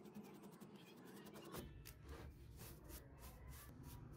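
Paintbrush bristles scrubbing dust off the old winding of a pedestal fan motor's stator: faint, quick scratchy strokes, several a second.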